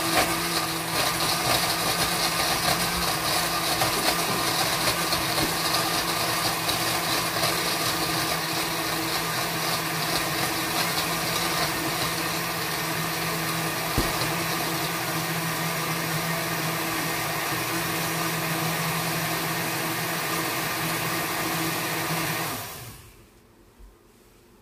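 Countertop blender running steadily at a constant pitch, blending a banana, ice cubes, powders and nut milk into a smoothie. The motor shuts off and winds down near the end.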